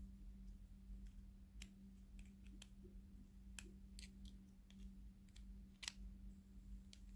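Near silence with a handful of faint, scattered clicks over a low steady hum.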